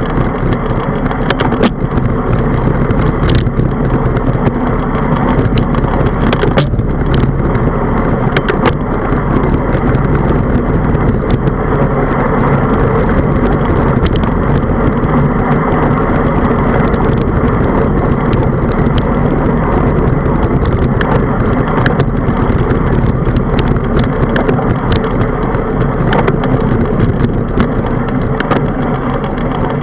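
Steady rushing noise of a bicycle riding along a paved road, picked up by a handlebar-mounted camera, with scattered rattling clicks from bumps.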